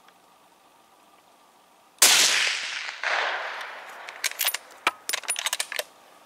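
A single rifle shot about two seconds in, its report rolling away and echoing back over the next couple of seconds, followed by a run of sharp clicks and knocks.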